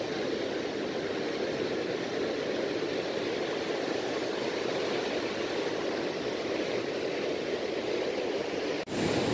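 Surf washing over shoreline rocks: a steady rush of moving seawater.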